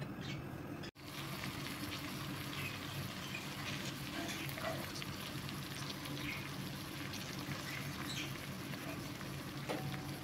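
Light crackling and patter of cooking in a pot as a spatula spoons fried shredded carrot and chicken onto drained rice, with small taps of the spatula, over a steady low hum.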